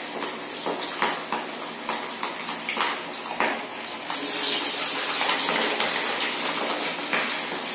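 Hot oil in a kadai sizzling, with scattered crackles. About four seconds in, a flattened clam-meat vada is dropped into the oil and the sizzle swells suddenly into a loud, steady hiss.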